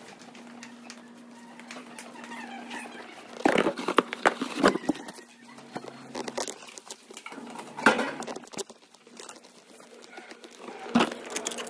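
Footsteps on a hard indoor floor with a few louder knocks and rustles, in groups about three to five seconds in, around eight seconds in and near the end, over a steady low hum.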